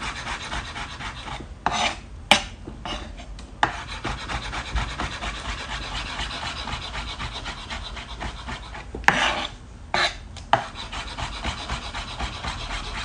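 Kitchen knife rapidly chopping soft roasted bell pepper on a wooden cutting board: a quick, steady run of blade taps on the wood. A few louder knocks come about two seconds in and again around nine to ten seconds.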